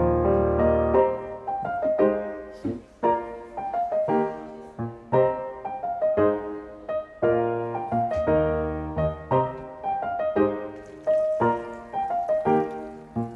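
Background music: a gentle piano melody with repeated notes and bass chords.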